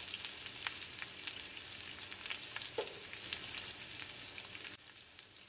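Pork belly cubes sizzling with scattered pops as they sear in a dry nonstick pan, frying in the fat rendered out of the meat. The crackle dies down near the end.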